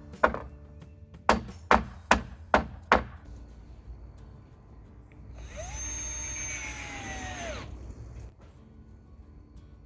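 Hammer striking a nail into a wooden rafter, six quick blows in the first three seconds. Then, about five and a half seconds in, a Black + Decker cordless drill drives a screw into a metal roof panel for about two seconds, its whine dropping in pitch as it stops.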